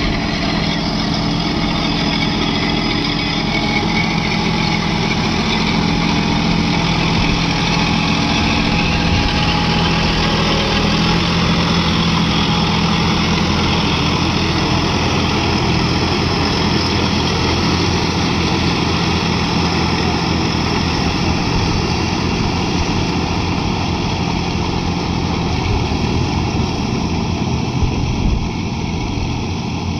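John Deere 5210 tractor's three-cylinder diesel engine running steadily under load as it hauls a roller implement through a flooded paddy field, with the tyres and roller churning water and mud.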